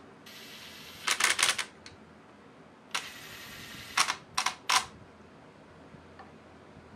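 A small hand-held powered driver runs twice, about a third of a second in and again about three seconds in, each run ending in a quick cluster of sharp clicks as it drives home bolts on the stator housing of a 1997 Polaris SLT780 engine.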